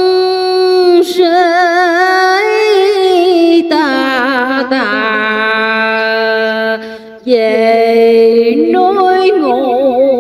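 A woman's voice chanting verse in a melodic sung recitation, holding long notes with wide vibrato and sliding between pitches, with a brief breath pause about seven seconds in.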